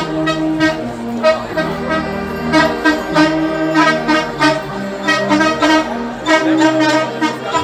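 Brass band music: held trumpet and trombone notes over a steady beat.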